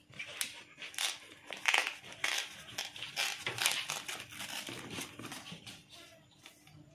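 A fresh bamboo shoot being peeled by hand: its stiff outer husk sheaths rustle and crackle as they are pulled back and stripped off, in irregular bursts that die down near the end.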